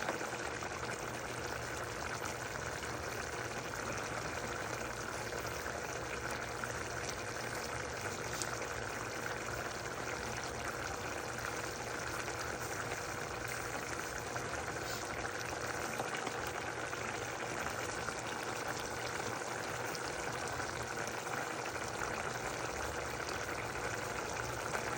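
Pot of potatoes boiling in water, a steady bubbling hiss that does not change.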